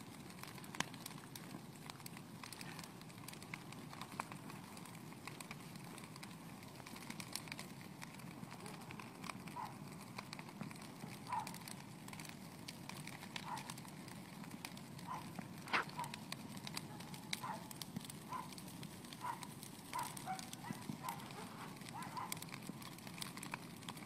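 Brush bonfire crackling and popping over a steady rush of burning. From about ten seconds in, a short high note repeats roughly once a second.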